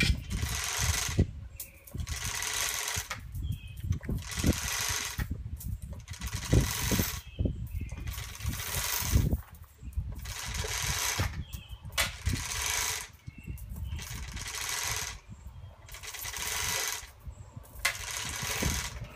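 Chain fall (manual chain hoist) being worked hand over hand to lower a hanging load: bursts of chain rattle and clatter from the hoist, repeating about every second and a half, with low knocks in between.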